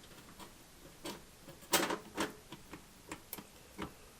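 Irregular small clicks and knocks of a power supply unit being fitted into a steel PC case and lined up with its mounting holes, with one louder knock about two seconds in.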